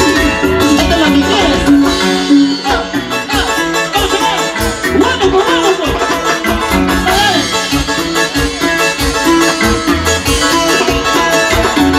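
Live band music with a steady beat, played for dancing.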